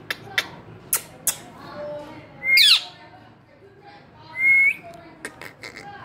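Indian ringneck parakeet giving two short, loud whistled calls, about two and a half and four and a half seconds in, with scattered sharp clicks between them.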